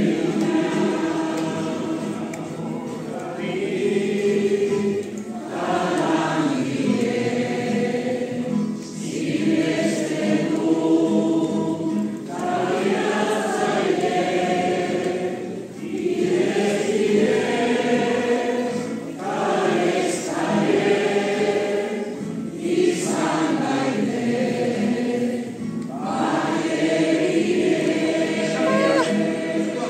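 A large congregation singing a song together in Basque, in sung phrases of a few seconds each with short breaks between them.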